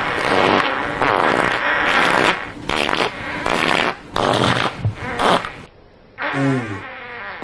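Fart sound effects in quick succession: a run of short, raspy bursts, then after a brief pause a pitched fart that falls in pitch near the end.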